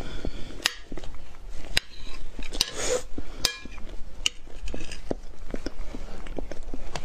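Eating chocolate mousse cake: a metal spoon clinks sharply against the plate several times, with soft chewing and mouth sounds in between.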